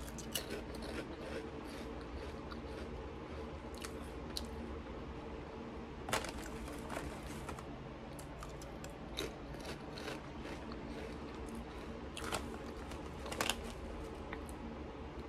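Lay's potato crisps being bitten and chewed, with close, irregular crunching and several sharper snaps, the strongest about six seconds in and again near the end.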